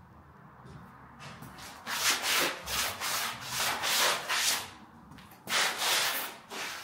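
Shoe scraping and scuffing over a gritty floor: a run of rough scrapes from about two seconds in, then one more about five and a half seconds in.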